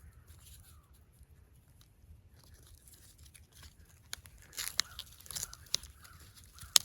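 Soil and roots crunching and tearing as Jerusalem artichoke tubers are dug up and pulled out. Quiet at first, then a scatter of short crunches from about four seconds in, with one sharp click near the end.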